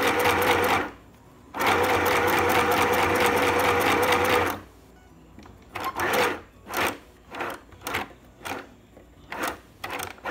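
Sew Simple FHSM 505 mini sewing machine stitching in two runs, its motor humming steadily; it stops about a second in, starts again, and stops for good about four and a half seconds in. A string of short separate clicks and knocks follows.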